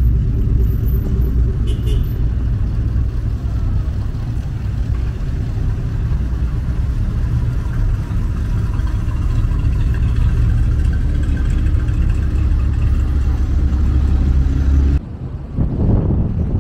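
Car engines running in slow street traffic, a steady low rumble. About a second and a half before the end it stops abruptly and a different sound begins.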